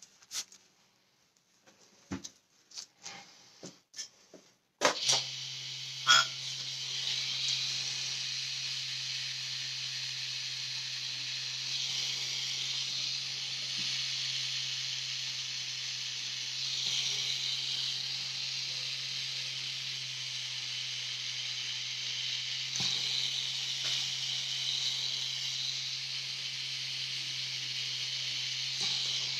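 Pen-style rotary tattoo machine switching on about five seconds in and running steadily on skin: a constant low hum with a hissy buzz above it. Before it starts there are a few soft taps and rustles.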